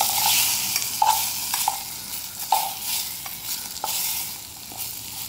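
Diced Spam and seasoning sizzling as they fry in a stainless steel cup, stirred with a metal spoon that scrapes and clinks against the cup every second or so. The sizzle gets quieter toward the end.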